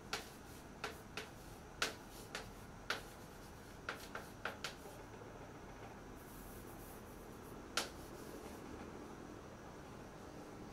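Chalk tapping and scratching on a blackboard during writing: a string of sharp, faint clicks, most of them in the first five seconds and one more near eight seconds.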